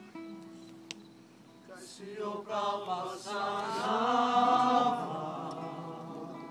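A group of people's voices raised together in worship, swelling to a peak about four seconds in and then easing off.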